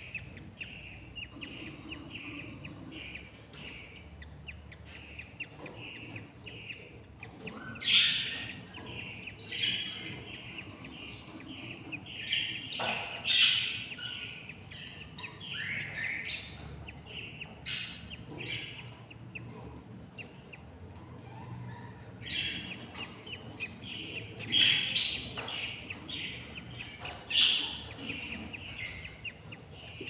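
Newly hatched budgerigar chicks cheeping steadily in the nest box, with louder, sharper chirps every two or three seconds.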